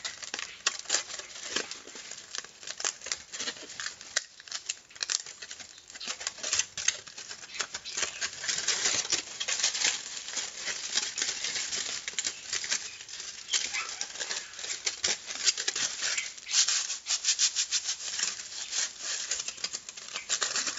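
Aluminium foil crinkling and crackling as hands crumple and work a sheet of it: a continuous run of rapid, sharp crackles that grows louder and softer as the foil is handled.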